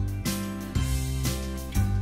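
Background music with a steady beat, about two beats a second, the notes changing on each beat.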